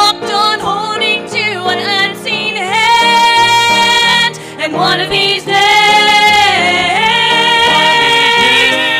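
Gospel song's instrumental break: a lead instrument carries the melody in long held notes that slide up into pitch, over steady chords.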